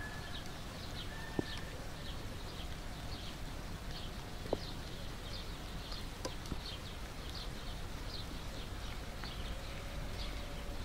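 Distant DR class 132 diesel locomotive giving a low steady rumble as it approaches, the tail of its horn sounding near the start and once more briefly about a second in. A bird chirps over it about twice a second throughout.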